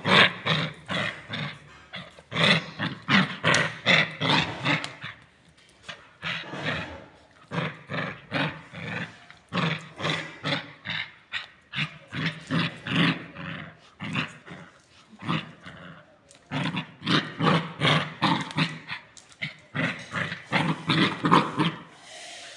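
A puppy growling angrily, in runs of short, rapid growls and yaps at about three a second, with brief pauses between the runs.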